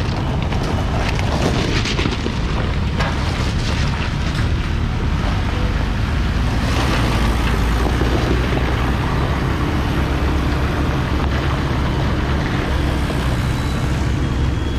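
Vehicle engines running steadily as cars and motorbikes come off the ferry onto the gravel landing, with wind on the microphone.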